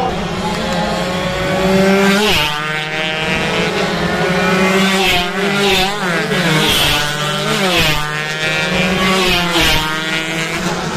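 Several 116 cc two-stroke underbone racing motorcycles revving hard at full throttle, each engine's pitch climbing and then dropping sharply at its gear changes, over a steady low hum.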